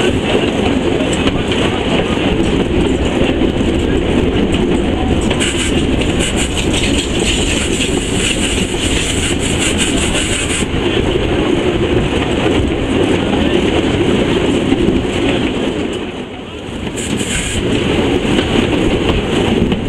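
Steam locomotive under way, heard from inside its cab: a loud, steady running noise that dips briefly about sixteen seconds in.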